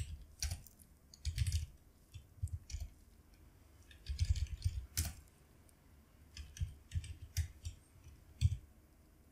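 Typing on a computer keyboard: short runs of keystrokes with pauses between, and one sharper click about five seconds in.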